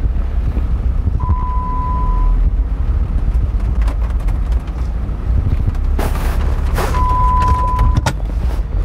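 Cabin noise of a Jeep Wrangler JK Unlimited being driven, its 2.8-litre turbo-diesel engine and the road making a steady low rumble. Two steady one-second beeps at the same pitch sound about six seconds apart, and a brief rush of noise comes about six seconds in.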